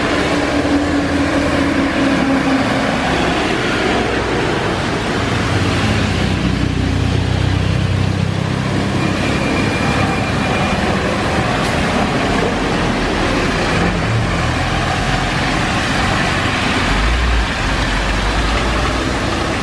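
City buses driving past on a wet road: an engine hum that swells as a bus passes close about halfway through, over a steady hiss of tyres on wet asphalt, with a deeper rumble near the end.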